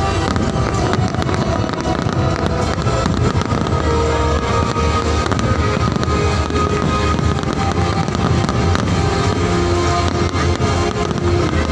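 Aerial fireworks display: many shells bursting in quick succession, a dense run of bangs and crackles over loud music.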